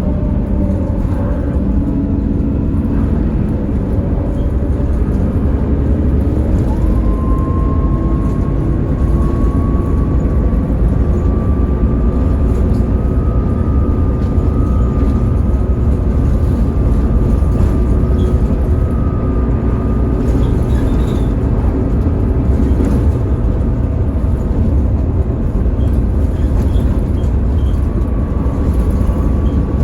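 Mercedes-Benz Citaro O530 bus under way: steady engine and road rumble, with a whine from the ZF automatic gearbox that comes in several seconds in, rises a little in pitch, then holds.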